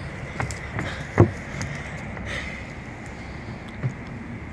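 A steady low rumble with a few short dull thumps, the loudest about a second in and another near the end, as a handheld camera is carried along while walking outdoors.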